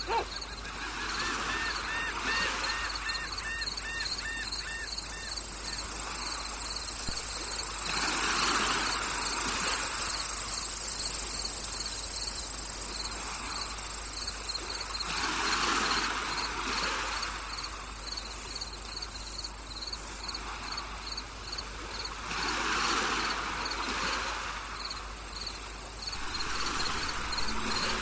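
Nature ambience: a steady insect drone with evenly repeated cricket-like chirps, a quick run of repeated honking bird calls in the first few seconds, and slow swells of rushing noise about every seven seconds.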